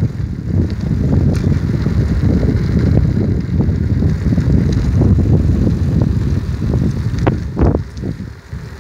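Wind buffeting the phone's microphone: a loud, irregular low rumble, with a couple of sharp clicks near the end.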